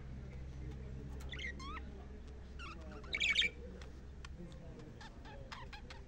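Budgerigars chirping and chattering: a few quick whistled notes gliding up and down, a loud harsh squawk about three seconds in, then a run of short sharp chirps.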